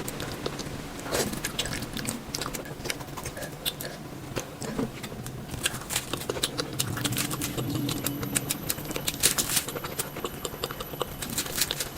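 Close-miked ASMR eating sounds: biting, chewing and crunching, with a steady stream of small mouth clicks and crackles.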